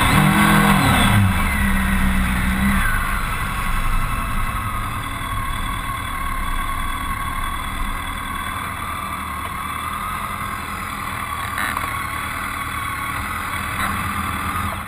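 BMW K1200R's inline-four engine note falling in pitch over the first couple of seconds as the bike eases off. It then fades under a steady rush of wind and tyre noise as the motorcycle rolls on.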